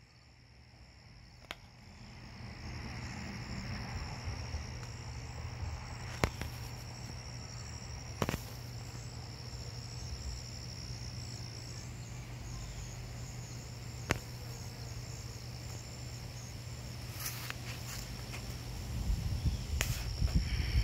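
A continuous high-pitched insect trill, like a cricket's, over a steady low hum, with a few sharp clicks. The trill breaks off briefly about halfway through, and low rumbling grows louder near the end.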